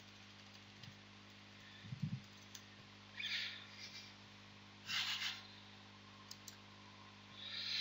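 A few short bursts of computer keyboard typing and mouse clicks, over a faint steady electrical hum.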